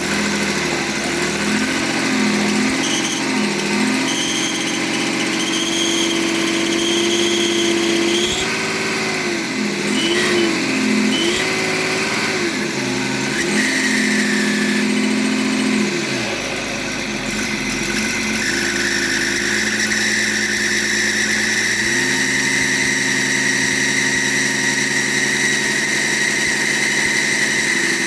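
BMW M57 3.0-litre straight-six diesel with a rebuilt variable-geometry turbocharger. The engine is blipped several times, then idles with a steady high turbo whistle that comes in about halfway and grows stronger toward the end. The owner finds the whine stops when the connector on the turbo's geometry control valve is unplugged.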